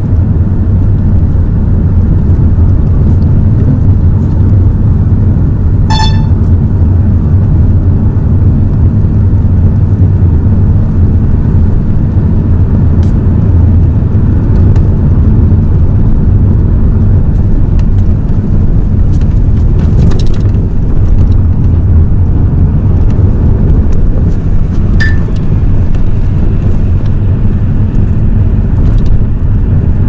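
Car driving on the road, a steady low rumble of engine and road noise, with a short beep about six seconds in.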